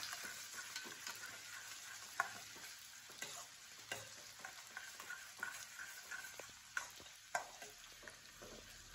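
Finely chopped small onions frying in oil in a metal kadai, a steady sizzle, while a metal spoon stirs them and clicks and scrapes against the pan every second or so.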